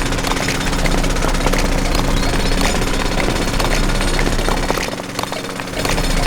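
Small motorised machine running with a fast, continuous clatter over a steady hum, dipping briefly about five seconds in.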